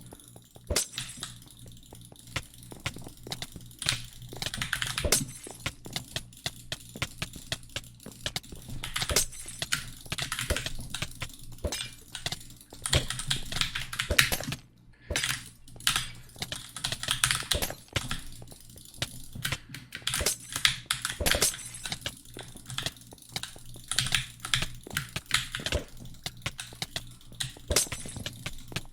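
Many sharp clicks and taps in irregular clusters, with a steady low hum underneath.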